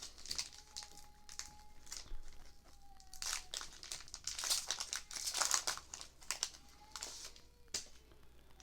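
Foil wrapper of a Pokémon booster pack crinkling and tearing as it is opened by hand, in a run of irregular rustles that is busiest in the middle.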